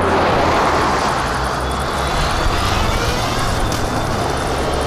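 Motorcycle under way: the engine runs steadily under a heavy, even rush of wind over the microphone.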